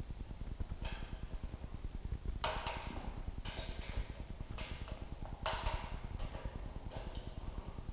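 Click-type torque wrench clicking as the front timing cover bolts reach their set torque of 18 ft-lb: several sharp metallic clicks, each with a short ring, a second or so apart, over a steady low rumble.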